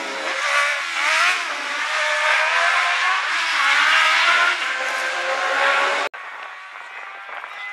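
Racing sidecar outfits' 600cc four-cylinder engines at full throttle as two outfits pass close by, the pitch rising and falling. About six seconds in, the sound cuts off abruptly to a quieter, steady engine drone.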